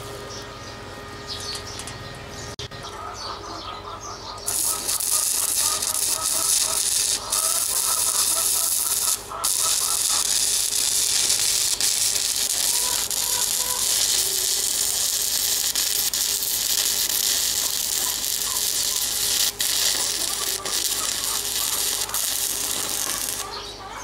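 Stick-welding arc from an E6013 electrode on steel. The arc is out at first, strikes up about four seconds in, then burns steadily with a dense crackling sizzle, broken briefly a few times. It stops just before the end.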